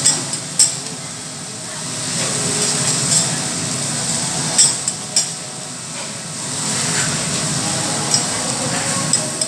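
Food sizzling on a teppanyaki griddle, swelling louder twice, with several sharp clinks of metal spatulas against the hot plate.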